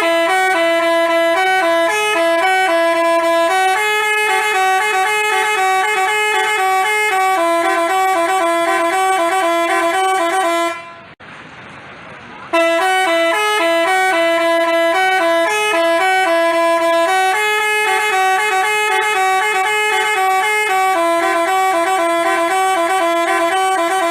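Basuri telolet horn, the multi-tone Indonesian bus horn, playing a fast stepping melody of alternating notes. It runs for about eleven seconds, stops, and starts the same tune again about two seconds later.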